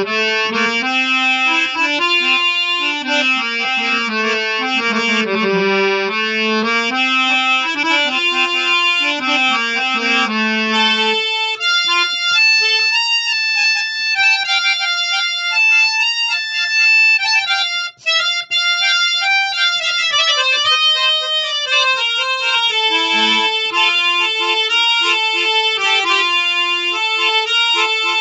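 Ratiram harmonium with German jubilate male-male reeds playing a melody with sustained reedy notes, in a low register at first and moving higher about eleven seconds in, with a brief break a little past halfway before lower notes return.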